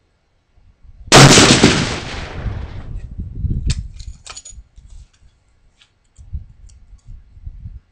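A single shot from a .338 Lapua Magnum Dakota Longbow bolt-action rifle with a muzzle brake, about a second in, very loud, dying away over about two seconds. A few sharp clicks follow shortly after.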